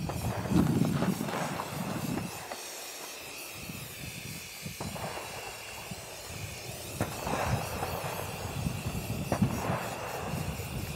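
Aerosol spray-paint can hissing as white paint is sprayed over the birdshot marks on a target, with some handling noise alongside.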